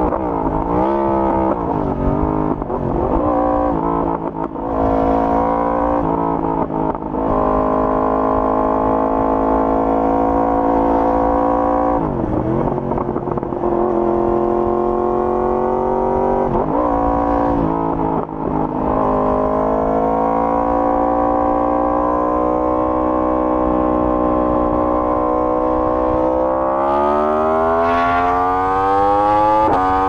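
Yamaha R1's inline-four engine through an Akrapovic full exhaust system, ridden on the road: revs held mostly steady with several brief dips, then climbing steadily as the bike accelerates over the last few seconds.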